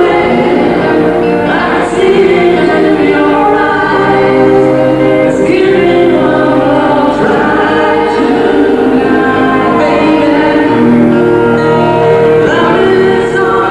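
Voices singing a song together to acoustic guitar accompaniment.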